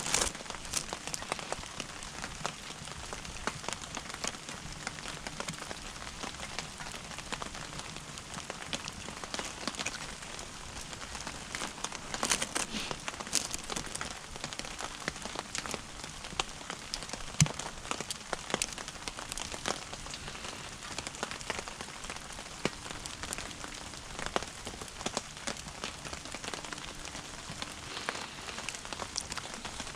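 Wood fire crackling as it burns down with no fresh wood added: a steady patter of small crackles and pops, with a few louder pops around halfway through.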